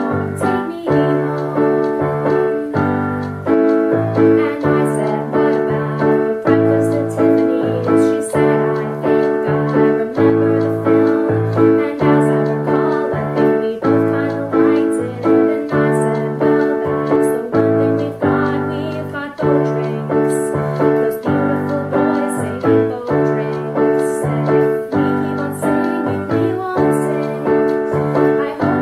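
Portable electronic keyboard on a piano voice, played as steady chords over a changing bass line in an even rhythm, with a voice singing along.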